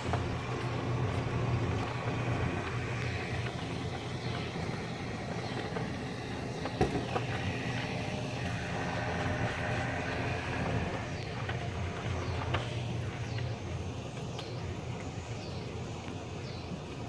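Golf cart driving steadily along a paved campground road with a low, even hum, and one sharp knock about seven seconds in.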